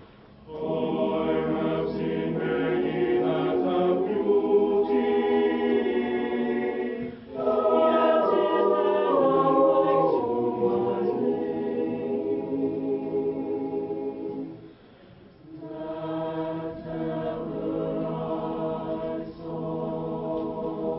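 A group of young voices singing together in chorus, holding long notes in several parts, with a short pause about two-thirds of the way through.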